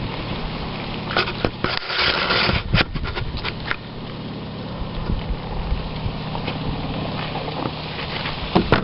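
Handling noise: a scatter of clicks, knocks and a short rustle in the first few seconds, then a steady low hum and hiss of background noise.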